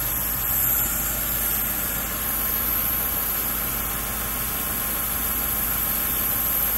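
Steady low mechanical hum, even throughout, with no distinct knocks or clicks.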